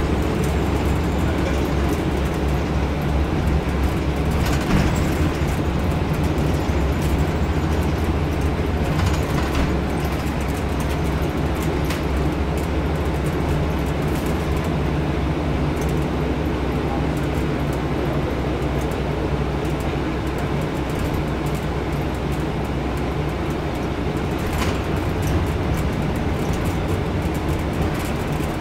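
Scania N230UD double-decker bus on the move, heard from its upper deck: the five-cylinder diesel and road noise make a steady low drone, with a few faint clicks from the fittings.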